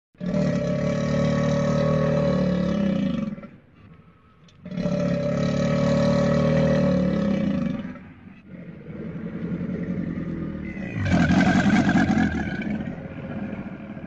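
Three long, deep, rough animal roars, each lasting about three seconds, with short gaps between them; the third is the loudest.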